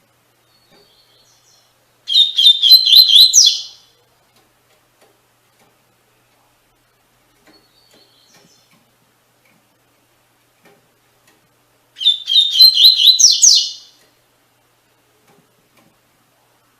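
A seedeater (coleiro/baiano type) sings its 'tui-tui' song twice, about ten seconds apart. Each phrase is a quick run of high, sliding notes lasting about two seconds, with a few faint chips in between.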